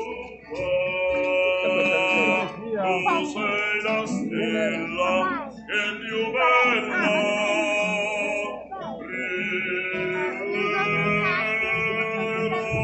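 Music: a man singing long held notes that slide between pitches, with instrumental accompaniment.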